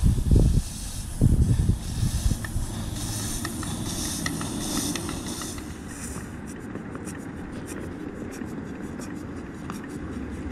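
Coal-fired inch-and-a-half scale live steam locomotive, a model of a Long Island RR H-10 2-8-0, running with steam hissing. Heavy low thumps in the first two seconds; in the second half a faint rapid ticking over a steady lower noise.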